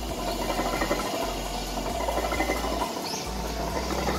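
Brake lathe turning a Toyota Hiace front brake rotor while sandpaper is held against the freshly resurfaced braking face. A steady scratchy hiss runs over the lathe motor's low hum, the final smoothing of the cut surface.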